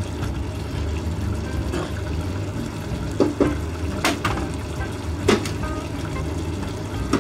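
Burdock and eggplant simmering in sauce in an enamel pot, a steady bubbling hiss over a low hum, as the pieces are stirred. A few sharp clinks of the utensil against the pot come between about three and five and a half seconds in.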